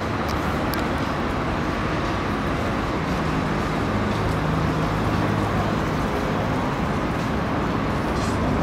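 Steady background din of an engine running somewhere out of sight, with a constant low hum and a wash of traffic-like noise.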